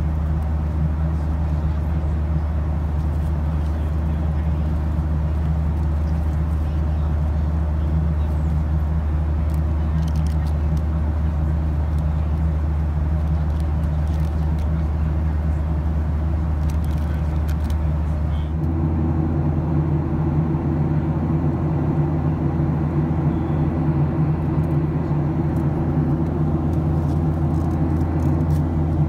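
Steady in-cabin drone of a Boeing 737-700 airliner in flight: its CFM56 jet engines and airflow running as one low, even roar. The drone changes character abruptly about two-thirds of the way through. A few faint clicks and rustles come near the middle.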